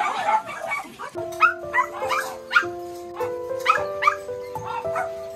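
Caged dogs barking and yipping, a dense overlapping chorus at first, then single barks and yips about every half second. About a second in, slow music with long held notes starts underneath.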